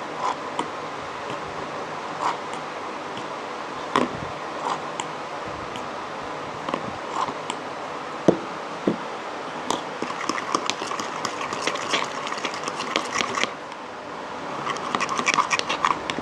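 Slime mixture of glue and shaving foam being stirred in a small bowl: scattered sticky clicks, turning into dense, rapid crackling from about ten seconds in, over a steady background hiss.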